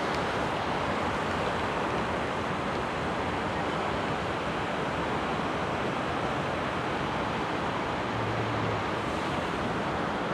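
Steady, unbroken rush of water spilling over a lake's outflow.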